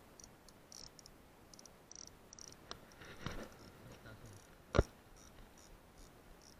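Crickets chirping in short, quick bursts of high chirps. Clothing and grass rustle about three seconds in, and a single sharp click just before five seconds is the loudest sound.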